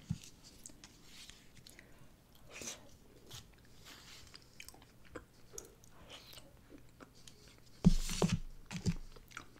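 Close-miked chewing and small mouth and fork clicks of a person eating. About eight seconds in, a louder knock with a low thud as a paper food cup is set down on the table, followed by a few more small clicks.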